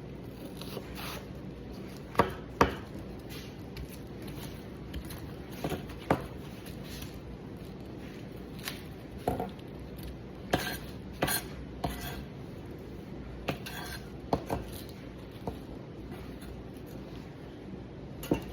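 Chef's knife chopping onion on a cutting board: sharp, irregularly spaced knocks, some single and some in quick pairs, with pauses between them.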